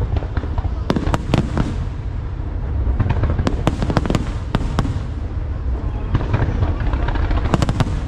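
Fireworks display: sharp bangs and crackles come in clusters, over a continuous low rumble.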